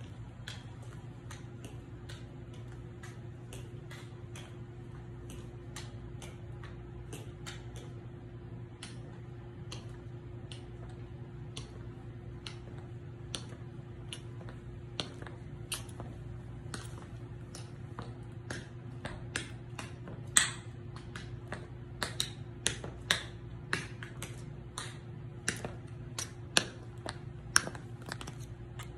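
Tap shoes' metal taps striking a hard floor in a quick, light run of sharp clicks, getting louder with stronger accents in the last third, over a steady low hum.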